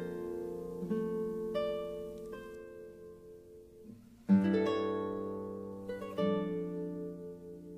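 Slow plucked-string music: single notes and chords ring out and fade, with a louder chord struck about four seconds in.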